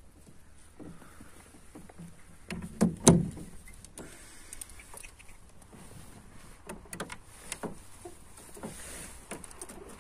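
Knocks and light clatter of fishing tackle being handled in a small boat, with two loud thumps close together about three seconds in and scattered small clicks and taps after.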